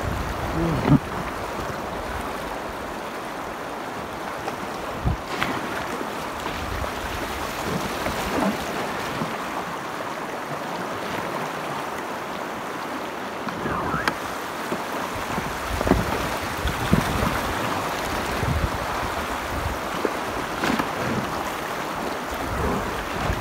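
Shallow rocky river riffle rushing and splashing around a packraft's bow, with wind on the microphone and a few scattered thumps.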